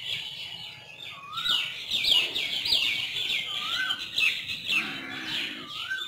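Many small birds chirping busily, with quick high chirps packed close together. A separate rising whistled call comes three times.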